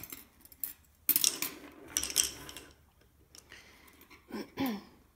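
Double-pointed knitting needles clicking and clinking against each other as the knitted piece on them is picked up and handled, with a longer stretch of clattering and rustling about a second in.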